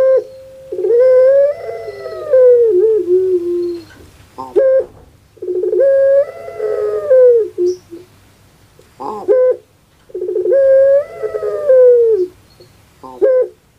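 Female puter pelung (a long-cooing Barbary dove) giving its rhythmic 'crying' coo: three long drawn-out coos about four and a half seconds apart, each wavering slightly in pitch and each preceded by a short sharp note.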